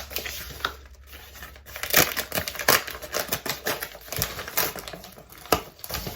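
Packaging being handled during an unboxing: crinkling plastic and card with a string of sharp clicks and taps, the loudest about two seconds in, again shortly after, and near the end.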